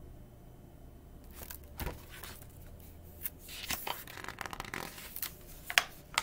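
Pages of a large picture book rustling and turning as the book is handled, with a soft thump just under two seconds in and a string of light clicks and scrapes.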